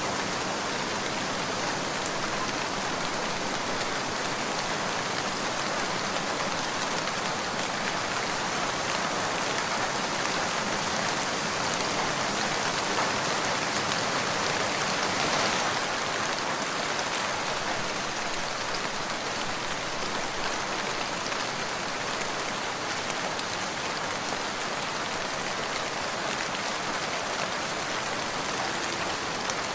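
Steady rain falling in a dense, even patter, swelling a little just past halfway.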